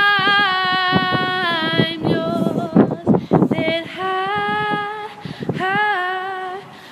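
A girl singing unaccompanied. She holds one long note for about two seconds, then sings several shorter held notes that slide in pitch, with breaths between them.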